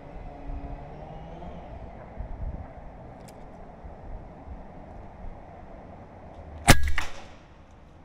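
A single shot from a suppressed .25-calibre Edgun Leshiy 2 PCP air rifle: one sharp crack about two-thirds of the way in, with a brief tail. A steady low background hum lies under it.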